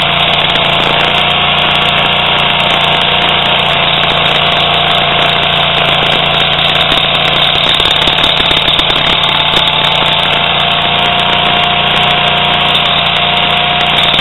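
Toro STX-26 stump grinder's engine running steadily at an even speed.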